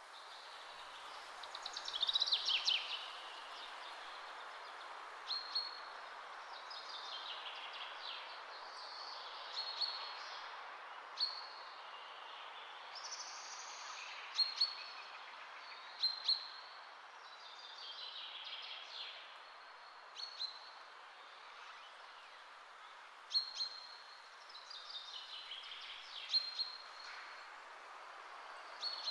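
Birds chirping and calling over a steady background hiss. Short, sharp chirps come every few seconds, mixed with a few falling trills.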